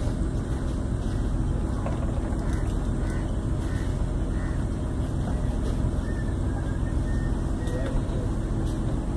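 Houseboat's engine running steadily as the boat cruises, a constant low hum.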